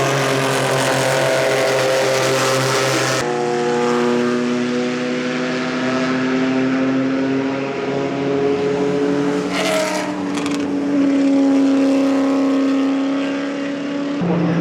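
Historic racing car engines running at speed on the circuit, their notes rising and falling as the cars go by. The sound changes abruptly a few times, from one car to another.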